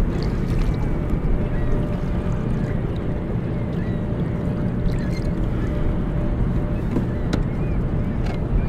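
Steady wind rumble on the microphone and water lapping around a fishing kayak, with a few faint clicks.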